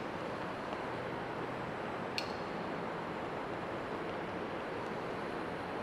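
Steady low background hiss, with a single faint click about two seconds in.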